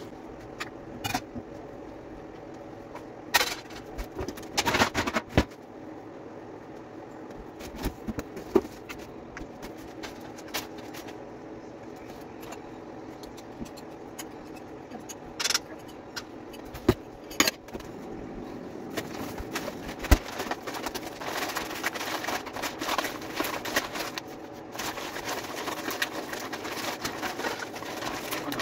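Dishes clinking and clattering now and then as they are put away and loaded, over a steady hum. The handling gets busier near the end.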